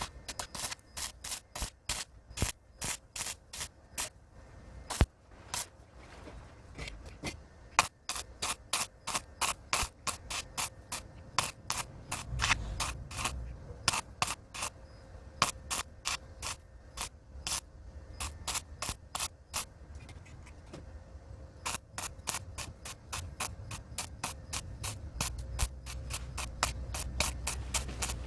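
Arc welding on a steel greenhouse pipe joint: a run of sharp, irregular crackles, several a second, with two short breaks.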